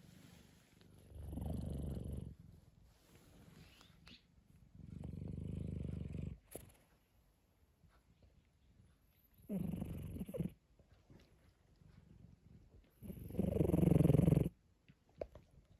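A cat snoring roughly. Four loud rasping snores come about every four seconds, with the last one the loudest.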